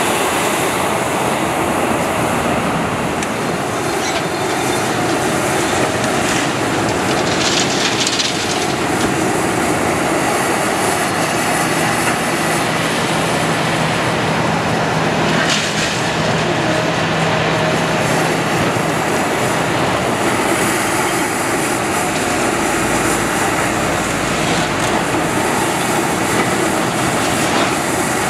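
Demolition excavator at work: engine and hydraulics running under load, with continuous clattering and scraping of rubble. There is a brief high hiss or screech about eight seconds in, a sharp knock about fifteen seconds in, and a steady low engine hum through the middle.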